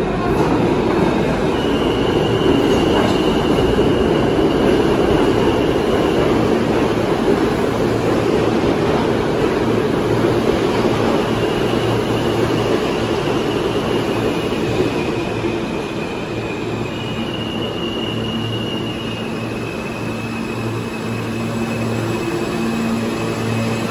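R160A subway train pulling into an underground station: the wheels rumble on the rails as the cars slow, with thin high wheel and brake squeals coming and going. From about a third of the way in, a steady low hum from the train comes through as the rumble eases.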